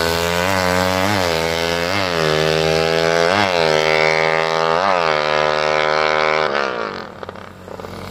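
Racing motorcycle engine running with repeated quick throttle blips, its pitch jumping up and dropping back about every three-quarters of a second. About six and a half seconds in the revving stops and the engine sound falls away.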